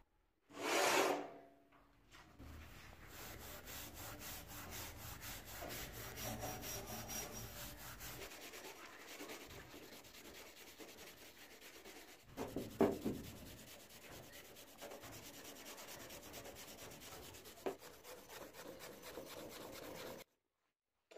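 A hand-held steel wire brush scrubbed back and forth over the rusty face of an iron axe head, a steady scratchy rasp as the surface rust is stripped off. It is louder briefly about a second in and again about thirteen seconds in, and stops abruptly shortly before the end.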